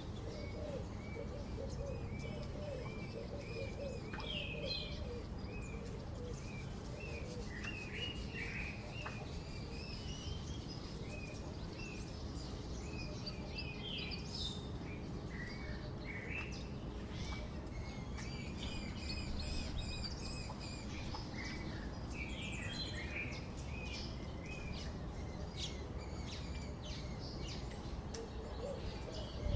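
Several wild birds calling and chirping throughout, short repeated phrases and trills from more than one bird, with lower repeated calls near the start and again near the end, over a steady low rumble.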